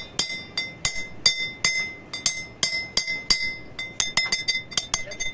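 Hammer blows on steel, driving a differential pinion bearing. About three strikes a second, each with a short metallic ring, quickening near the end.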